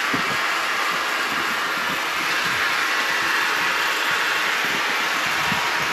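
Water pouring steadily into a lined pool as it is filled, an even rushing hiss with no change in level.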